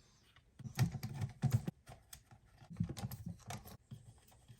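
Flat-head screwdriver backing out the screws of a light switch faceplate: two short runs of clicking and scraping of metal on the screw heads.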